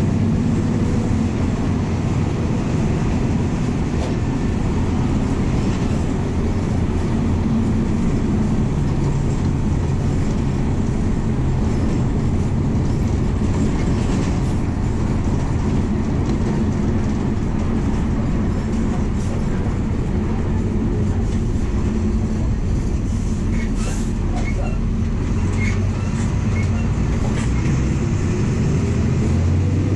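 MWM 6.12 TCE six-cylinder turbodiesel of a VW 17.230 EOD city bus running under way, heard from inside the cabin with road noise. The engine note holds steady and rises slightly near the end, with a few faint rattles late on.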